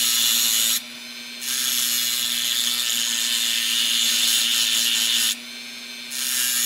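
Handheld rotary tool with a thin cut-off disc grinding into a diecast metal car base, cutting away metal to make room for new axles. A steady high grinding hiss rides over the motor's hum and eases off briefly twice, about a second in and again near the end, while the motor keeps running.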